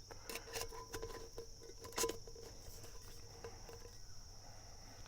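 Insects chirring steadily in a high band, with scattered light clicks and taps of small things being handled; the sharpest tap comes about two seconds in.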